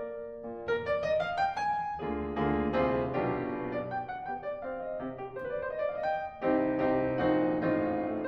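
Background piano music playing a gentle melody of single notes and chords.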